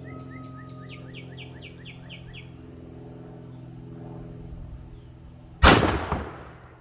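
A single shot from a 10 gauge shotgun firing a 3.5-inch Federal Power-Shok slug, a sharp report about five and a half seconds in that echoes and fades over the next second. Before it, a bird chirps a quick, even series of calls.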